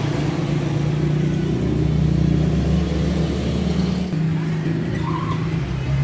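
Steady low drone of running machinery, an engine-like hum.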